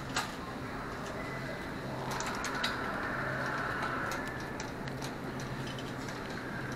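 Store background noise: a steady low hum under a general hubbub, with scattered clicks and light rattles from handling and carts, several of them together a couple of seconds in.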